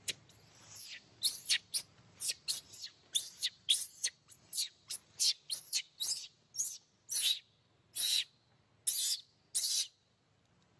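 Baby macaque crying for milk in a run of short, high-pitched squeals, about two or three a second, spacing out into longer single cries near the end.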